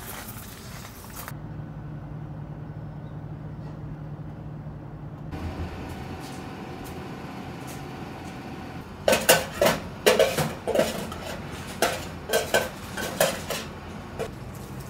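A metal utensil clinking and scraping against stainless steel food pans: about a dozen sharp clinks in quick, uneven succession, starting a little past the middle. Before that, only a low steady hum of room tone.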